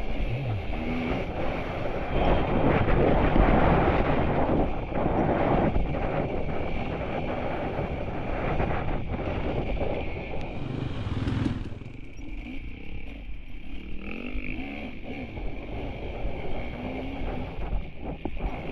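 KTM enduro dirt bike engine running and revving up and down on a trail ride, with a rough rushing noise over it. It eases to a lower, quieter pitch about two-thirds of the way through.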